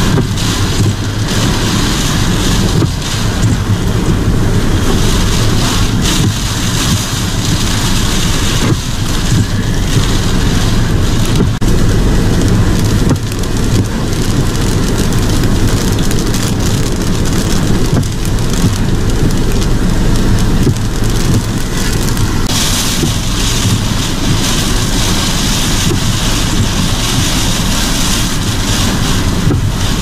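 Hurricane wind and heavy rain: a loud, steady rush of driving rain over a low rumble of wind on the microphone. The rain hiss grows louder about two-thirds of the way through.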